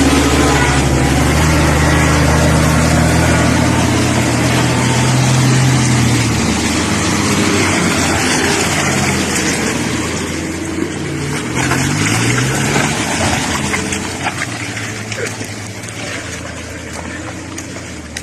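4x4 truck engines running under load, their pitch rising and falling as they rev. The sound grows fainter over the last several seconds.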